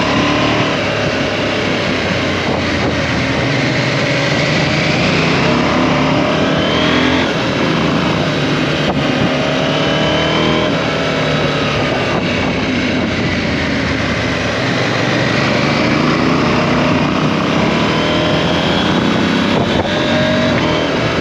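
KTM 790 Adventure's parallel-twin engine running under way, its revs rising and falling several times, over a steady rush of wind and road noise.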